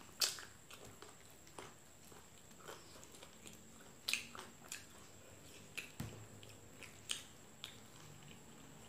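Close-miked chewing of a mouthful of fried chicken and rice: irregular wet clicks and smacks from the mouth, the sharpest just after the start and again around four and seven seconds in.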